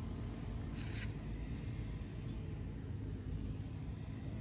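Steady low outdoor rumble, with a brief rustle about a second in.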